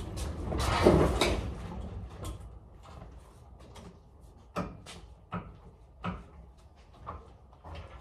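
Manual pallet jack hauling a loaded pallet: a rolling, rattling rumble for the first couple of seconds, then scattered sharp clunks as it moves on.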